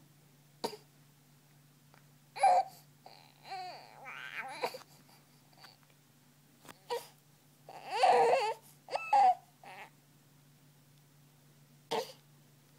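A young infant's short grunts, squeaks and fussy cry-like sounds, in separate bursts with the loudest about eight seconds in, made while straining during tummy time. A faint steady low hum runs underneath.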